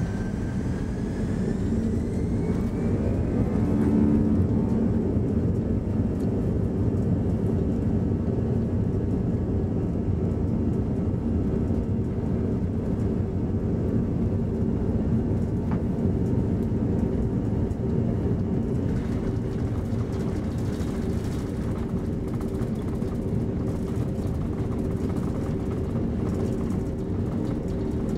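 Cabin noise of an Airbus A340-300 rolling on the ground, heard from inside near a front window: a steady hum and rumble from its four CFM56 engines. A whine rises in pitch over the first few seconds and then fades.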